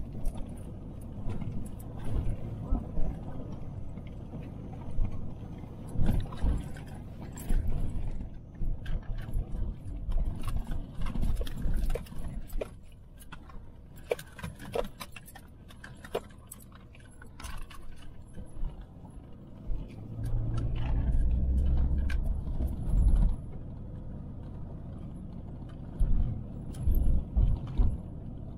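Car driving slowly on a gravel road, heard from inside the cabin: a low tyre rumble with frequent clicks and rattles. The rumble grows louder for a few seconds about two-thirds of the way through.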